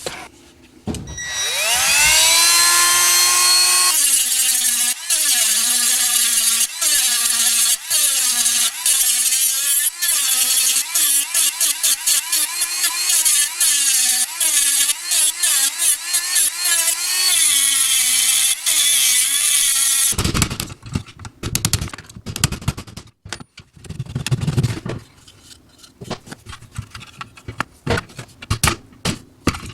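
Electric drill spinning up, then drilling out steel rivets in a sheet-metal toy gun, its pitch dipping and wavering under load as the bit cuts. After about twenty seconds the drill stops, and irregular metallic clicks and clatter from handling the parts follow.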